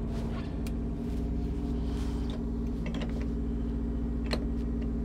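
Built turbocharged Subaru EJ22 flat-four engine of a rally car idling steadily, heard from inside its cabin, with a few sharp clicks over the idle.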